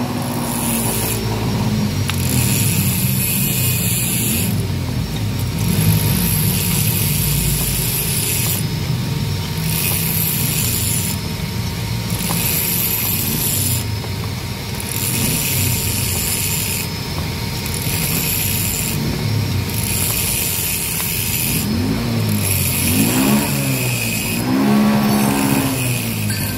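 An engine runs steadily, its pitch rising and falling a couple of times near the end. Under it, a screw-type bearing puller is turned by hand to draw a worn bearing off a scooter final-drive shaft.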